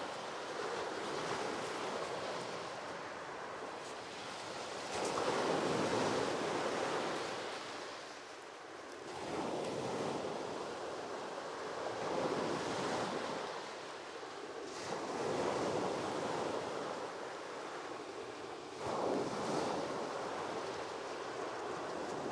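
Sea waves breaking on a beach, the surf swelling and ebbing every three to four seconds.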